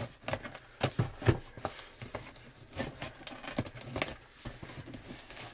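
Scissors cutting through packing tape along a cardboard box seam: irregular snips and crackles of the blades and tape against the cardboard.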